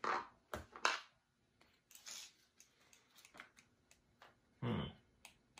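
A claw hammer tapping a small nail into a thin wooden kit piece: three sharp strikes within the first second, then a few faint clicks of wood pieces being handled and one short, duller sound near the end.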